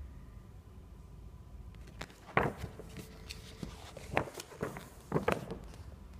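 Paper brochure rustling and crackling as it is handled and turned over, a few short rustles starting about two seconds in.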